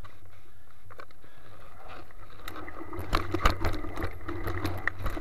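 Mountain bike riding a dirt forest trail: a steady low rumble at first, then from about three seconds in the bike rattles and clatters over roots and rough ground, with many sharp knocks.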